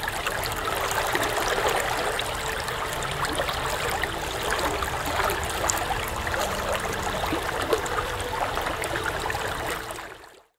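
Running water, a steady wash of trickling and splashing that fades out near the end.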